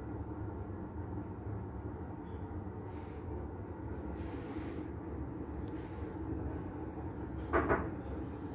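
Steady low room hum with a faint, regular high-pitched chirping about three to four times a second. A short louder sound comes near the end.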